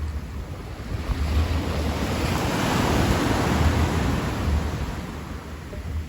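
Sea waves breaking on the shore: a wash of surf that swells to a peak about halfway through and fades away, over a low rumble of wind on the microphone.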